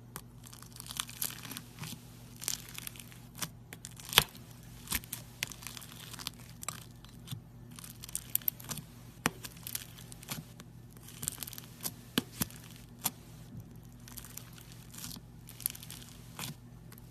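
Slime being stretched and squeezed by hand close to the microphone: sticky crackling and tearing, with irregular sharp pops and clicks throughout and a sharp pop about four seconds in. A faint steady low hum lies underneath.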